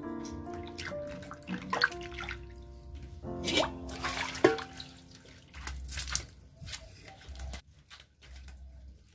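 Water splashing in a basin as cut glatik eggplants are rinsed, then the basin's water tossed out onto a concrete floor with a splash about four seconds in. Background music plays under it and stops near the end.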